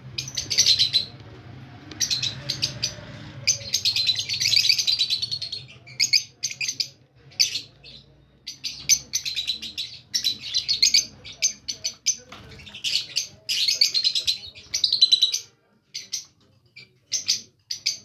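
A flock of caged Fischer's lovebirds chattering: rapid, high-pitched chirps in overlapping bursts of a second or so, broken by short pauses.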